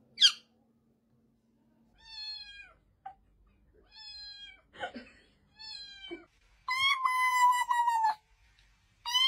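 Cat meowing repeatedly: three short meows falling in pitch, then two long, louder meows near the end.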